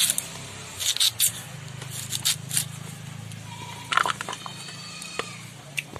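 New potato being cut into sticks on a boti, the upright curved blade of a Bengali kitchen: a handful of short, sharp cutting and scraping strokes at irregular intervals. A steady low hum runs underneath.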